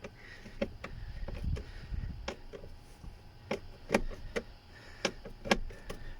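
A hand screwdriver driving the last screw into a plastic steering column cover: sharp, irregularly spaced clicks with low handling bumps.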